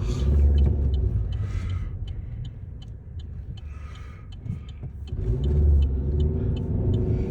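Car engine and road noise heard from inside the cabin, swelling louder twice as the car pulls away and accelerates up a highway ramp, with a faint, regular light ticking.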